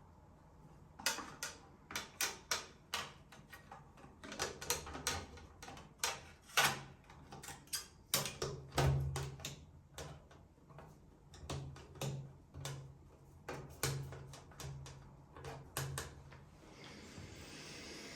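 Irregular clicks and knocks of installation hardware being handled and fitted, with short low hums now and then.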